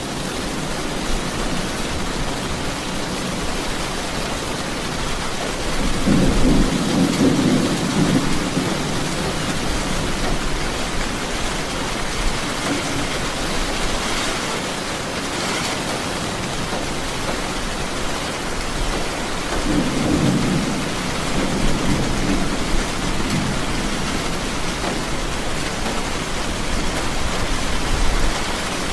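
Steady rain falling, with low rolling thunder swelling about six seconds in, again around twenty seconds in, and near the end.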